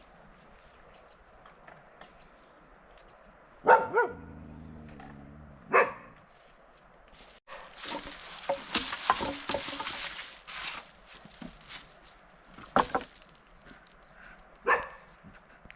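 A dog barking four times in short single barks, two close together near the start and two more near the end, with a longer stretch of scuffling noise between them.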